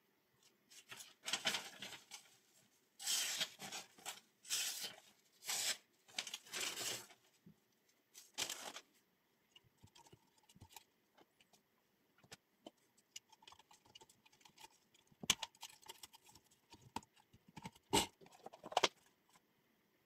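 Hands handling the Work Sharp sharpener's plastic belt guide and the paper beneath it, with the motor off: a string of rustling scrapes in the first half, then scattered sharp clicks.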